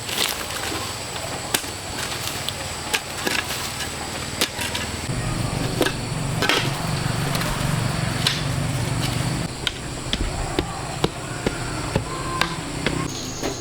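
A series of irregular knocks and chopping strikes, like hand work with a tool, over steady outdoor background noise.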